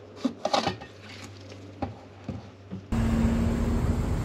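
Light clicks and knocks of a fuel-level sending unit being handled and fitted back into the fuel tank opening. About three seconds in, a sudden switch to a gas-station fuel nozzle filling the tank: a loud steady rush with a brief hum.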